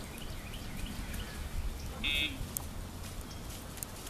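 Dogtra e-collar pager giving one short buzz about two seconds in, the vibration cue the dog is trained to feel.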